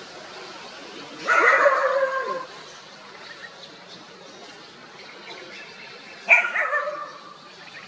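Two drawn-out animal calls, each about a second long, with a falling tail: one about a second in and one near the end.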